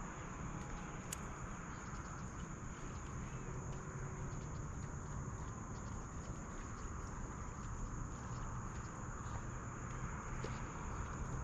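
A steady high-pitched insect drone over a low outdoor rumble, with one sharp click about a second in and faint scattered ticks.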